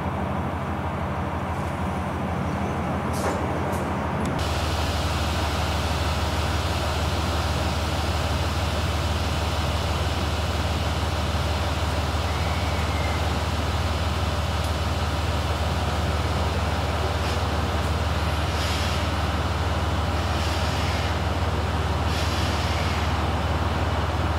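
A train running close by: a steady low hum under a rushing noise, which grows fuller and a little louder about four seconds in.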